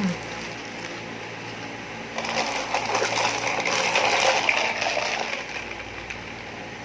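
A drink being sipped noisily through a straw, with a slurping, gurgling rush of about three seconds that starts about two seconds in.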